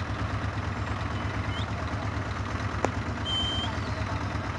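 Tractor diesel engine running steadily with a low, rapidly pulsing rumble as it works at a tractor mired in deep mud. There is a single sharp click just before three seconds in and a brief high whistle soon after.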